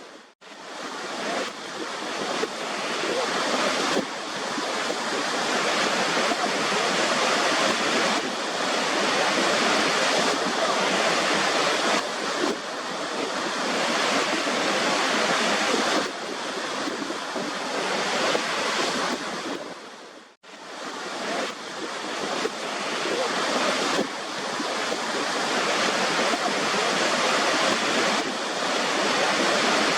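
Waterfall: a steady rush of falling water. It cuts out briefly twice, just after the start and about twenty seconds in, and fades back up each time.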